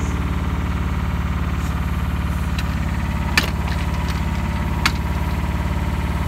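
Yanmar YB1200 mini excavator's small diesel engine idling steadily, with two sharp clicks about a second and a half apart near the middle.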